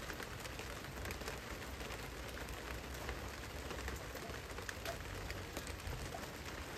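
Steady rain pattering on clear corrugated roof panels, a constant hiss dotted with many small drop taps.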